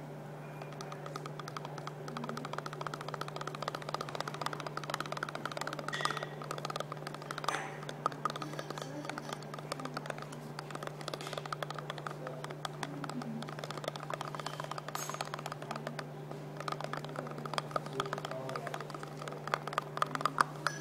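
Polyurethane foam expanding in a glass tube, giving a rapid, irregular fine crackle of tiny clicks that grows denser near the end, over a steady low hum.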